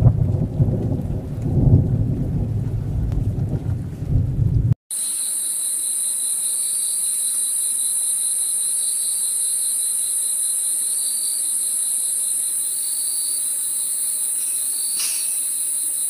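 A low rumble for about the first five seconds cuts off abruptly and gives way to a steady, high-pitched insect chorus, a constant shrill trill with faint repeating chirps beneath it.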